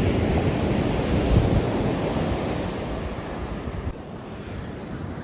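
Ocean surf washing up a beach, loudest over the first few seconds and easing off about four seconds in, with wind rumbling on the microphone.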